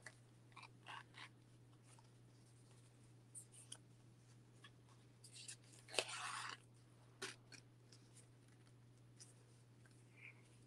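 Faint rustling and light taps of cardstock and satin ribbon being handled as the ribbon is threaded through punched holes, with a louder rustle about six seconds in.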